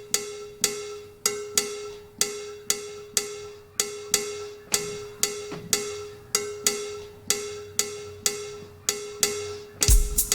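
Sampled cowbell from a round-robin sampled drum kit, struck about two to three times a second at an even pace. Each hit has the same pitch and rings briefly. Near the end a sampled drum kit with kick drum comes in.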